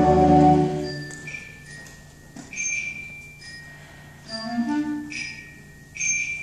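Middle school concert band playing: a full sustained chord dies away about a second in, giving way to a quiet passage of separate high ringing strikes from mallet percussion over a faint held tone, with a soft wind chord entering briefly about four seconds in.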